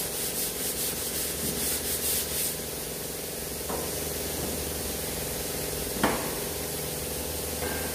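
Sandpaper rubbed by hand over a car's front fender in quick back-and-forth strokes that stop about two and a half seconds in. A steady shop hum runs underneath, and a single knock comes about six seconds in.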